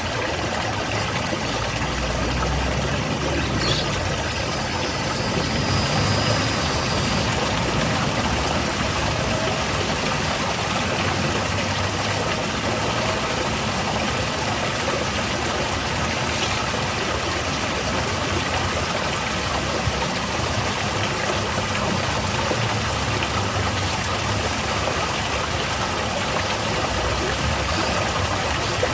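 Garden waterfall: water falling and splashing in a steady, unbroken rush.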